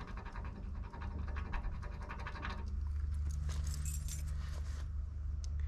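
A key rubbed rapidly back and forth over Testex replica tape stuck on sandblasted steel, burnishing the tape's foam pad into the blast profile, with fast scratchy strokes that stop about two and a half seconds in. A bunch of keys then jingles briefly as they are put away, over a low steady hum.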